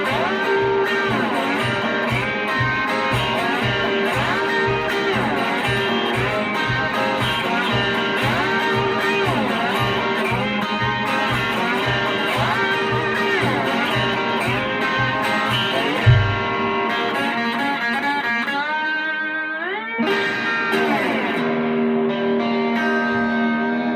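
Instrumental guitar break of a song: guitar lead with bending notes over a steady bass and drum beat. About two-thirds of the way through, the beat stops on one loud hit, a guitar note slides upward, and held notes ring out to close.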